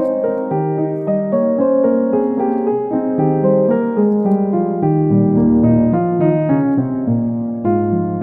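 Piano music: a steady run of melody notes, with lower bass notes joining about five seconds in.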